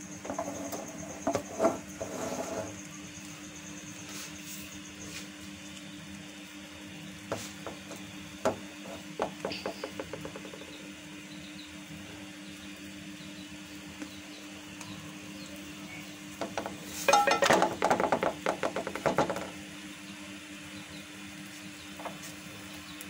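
Kitchen clatter: short bursts of light clicking and clinking of utensils over a steady low hum, twice in the first ten seconds and loudest from about seventeen to nineteen seconds in.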